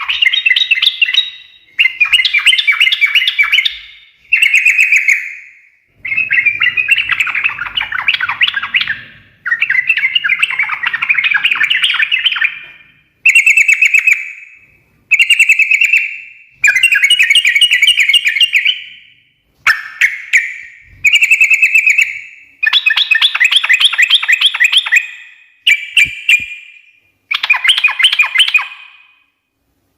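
Yellow-vented bulbul (trucukan) singing a long run of bubbly, chattering phrases. Each phrase lasts one to three seconds, with short breaks between them.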